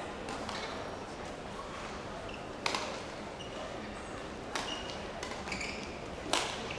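Badminton rally: three sharp racket strikes on the shuttlecock a little under two seconds apart, with a few brief shoe squeaks on the court mat, over the steady background of a large sports hall.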